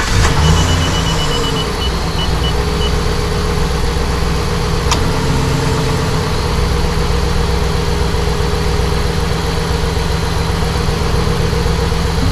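Truck engine idling just after starting, with a row of short high beeps in the first few seconds and a single sharp click about five seconds in.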